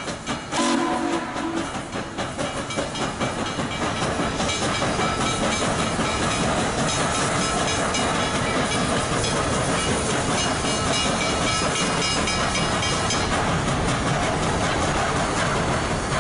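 Western Maryland 734, a 2-8-0 steam locomotive, gives a short chord-like whistle blast about half a second in. After that comes the steady loud rumble and clatter of the engine and its passenger cars rolling past.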